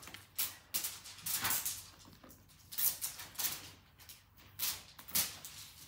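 Plastic packaging rustling and crinkling in a series of irregular short swishes as a clear plastic tub is handled and worked at to get it open.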